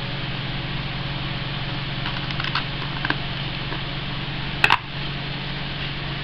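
Trading cards and a black plastic card case being handled: a few soft clicks, then one sharper click about four and a half seconds in, over a steady low hum.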